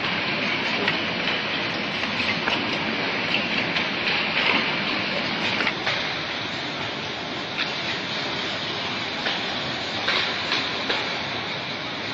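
Production-line noise in a box-making and packing hall: a steady rushing machine noise with frequent irregular clicks and clacks.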